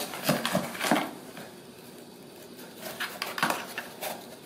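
A Ragdoll kitten's paws scrabbling and knocking on a cardboard box as it climbs in and out: a burst of scratches and thumps in the first second, and another about three seconds in.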